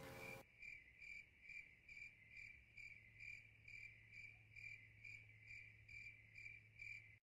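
A cricket chirping faintly and evenly, about two to three short chirps a second, the stock 'crickets' effect after a joke falls flat; it cuts off abruptly near the end. A faint low hum lies underneath.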